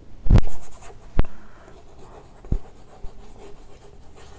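Chalk writing on a chalkboard: two sharp taps of the chalk against the board in the first second or so and a softer one midway, with faint scraping strokes between.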